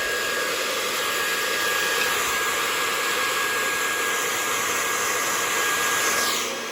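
Handheld hair dryer blowing steadily, with a thin whine over its rush of air. About six seconds in its motor pitch falls and it gets quieter.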